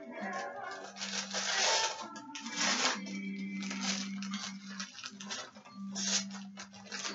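Paper and packaging rustling and crinkling in irregular bursts as a wrapped present is opened.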